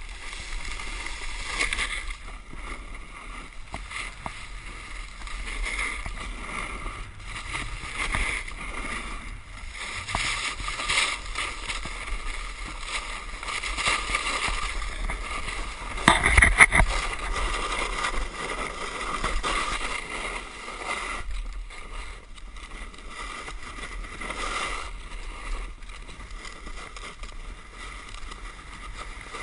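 Rossignol snowboard sliding and carving over snow: a continuous scraping hiss that swells and fades with each turn, mixed with wind buffeting the GoPro's microphone. About sixteen seconds in there is one loud bump.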